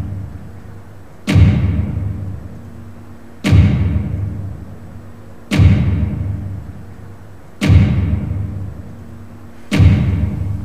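Deep, dramatic boom hits on the soundtrack, struck five times about two seconds apart, each dying away slowly.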